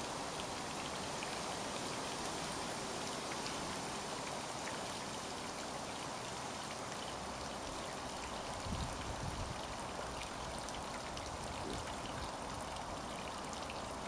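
Steady pattering and trickling of water on a garden pond, with light splashing from a small black East Indian duck bathing. About nine seconds in there is a short low fluttering rush, as the duck beats its wings on the water.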